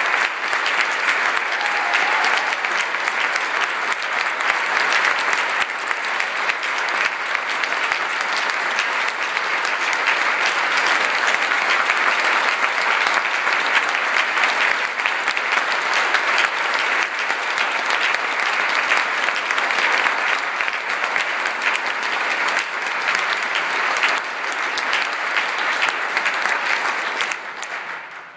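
Congregation applauding, a steady dense clapping that dies away near the end.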